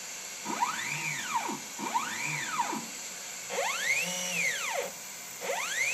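The CNC router gantry's stepper motors make four short jog moves. Each one is a whine that rises in pitch as the motor speeds up and falls as it slows to a stop.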